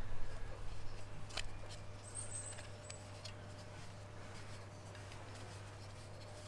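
Quiet handling noise from a plastic oil bottle and filler tube being worked at a bicycle hub: scratching and a few small clicks, busiest in the first second and a half, over a steady low hum. A brief high chirp sounds about two seconds in.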